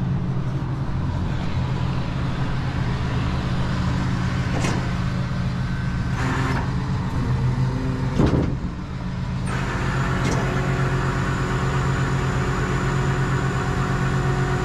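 Rollback tow truck's engine running steadily, with a few short knocks, the loudest a little past halfway. About two-thirds of the way through, a steady higher whine joins the engine note.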